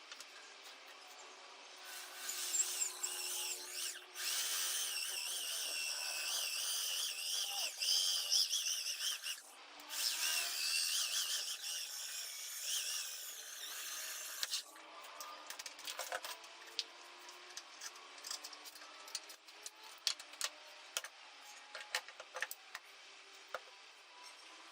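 Electric power tool running under load in three stretches, its whine wavering as it bites into the work. It is followed by a run of scattered clicks and knocks from handling the tool and the workpiece.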